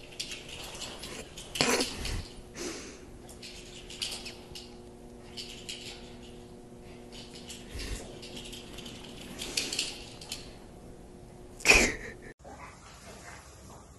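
Small dog's collar tags jingling in short, irregular bursts as it runs on carpet, over a faint steady hum. A louder, sharp noise comes near the end.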